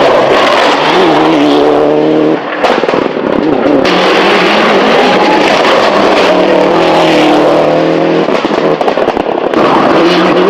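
Rally car engine at full throttle, its pitch climbing again and again as it shifts up through the gears, with a brief lift about two and a half seconds in.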